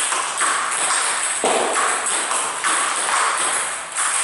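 Table tennis ball being hit back and forth in a drill, clicking off the paddles and the table about twice a second, with one duller knock about a second and a half in.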